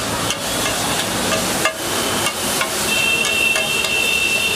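Sliced onions and peppers sizzling on a large flat griddle (tawa) while metal spatulas scrape and clack against it as they are stir-fried. A steady high-pitched tone comes in about three seconds in.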